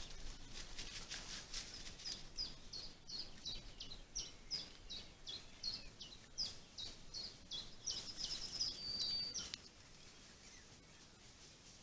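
A small songbird singing: a run of short, high, falling notes about three a second, ending around nine seconds in with a quick trill and a held whistle. Scattered soft clicks sound in the first two seconds.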